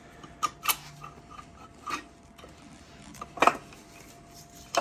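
Metal engine parts and tools clinking and knocking as they are handled during an engine teardown: about five separate sharp knocks, the loudest about three and a half seconds in.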